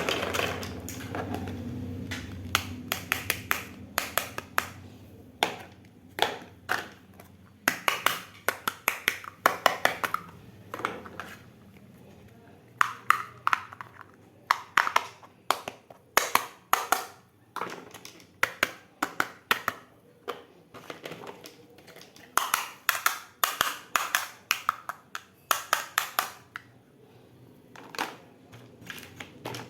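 Miniature toy kitchen pieces being handled and set down, giving sharp clicks and taps in quick clusters with short pauses between them. A low hum sounds in the first couple of seconds.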